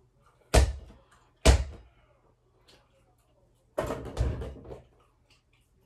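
A basketball bounced twice on a hard floor, two sharp thuds about a second apart. Then a shot at a mini hoop over a door: the ball hits the backboard and door with a rattling clatter lasting about a second.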